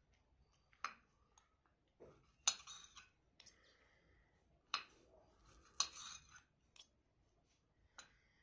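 Cutlery clinking and scraping against a plate, in short separate strokes about once a second.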